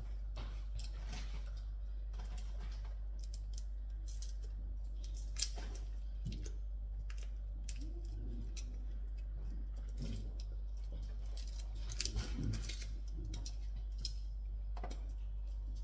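Scattered small crinkles and clicks of a stock cube's wrapper being peeled open, the cube crumbled into a pot, over a steady low hum.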